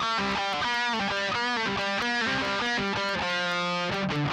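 Epiphone Les Paul 100 electric guitar played lead through a Jam Buddy amp: a quick run of single picked notes, some bent, then one note held for about half a second near the end.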